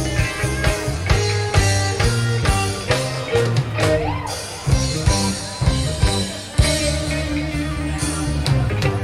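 Live rock band playing an instrumental passage: guitar lines over bass and drum kit, with a bent guitar note about four seconds in.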